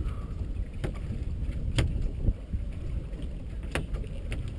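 Steady low rumble of a small open fishing boat at sea, with wind on the microphone, and a few sharp knocks on the boat, the clearest about two seconds in and near the end.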